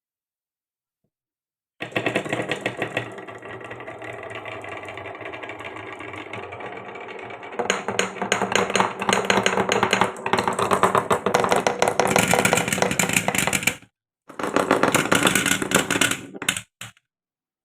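Marbles rolling and clattering down a wooden marble run: a dense, rapid rattle of clicks that gets louder about halfway through. It breaks off briefly, starts again, and stops shortly before the end.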